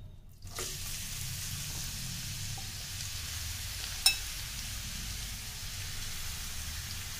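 Grated carrots frying in hot ghee in a non-stick kadhai: a steady sizzling hiss that starts about half a second in as the carrots hit the fat. A single sharp knock about four seconds in.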